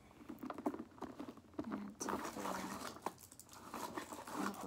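Hands rummaging through a handbag: small items clicking, rustling and knocking together in quick irregular bursts.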